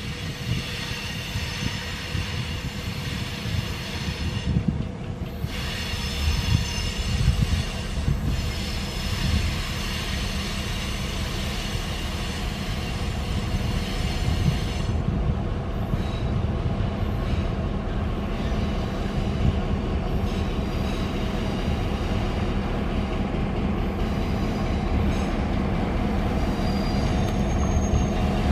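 EMD GP7u diesel switcher running as it slowly pulls a cut of autorack cars, its engine a steady low rumble that grows louder as it approaches. Steel wheels squeal on the rail through about the first half, with two short breaks, then the squeal fades to occasional faint tones.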